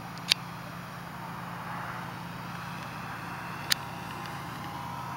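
Electric motor and propeller of a radio-controlled SE5a biplane whining faintly as it makes a low pass, over a steady hum of wind and background noise. Two short sharp clicks stand out, one just after the start and one near four seconds in.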